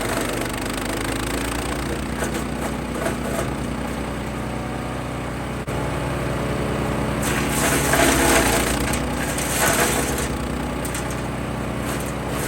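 MechMaxx 6-inch wood chipper running on its Kohler Command Pro 14 hp engine, with wood being chipped: a louder, grinding crunch from about 7 to 10 seconds in over the steady engine note.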